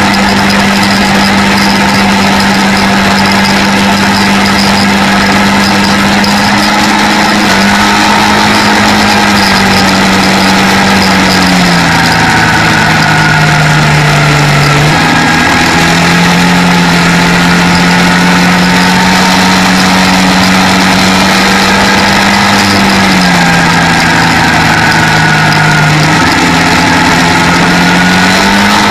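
Quad bike engine running at steady cruising revs, its pitch sagging twice for a few seconds as the throttle eases off, then climbing back. A steady rush of wind and road noise runs underneath.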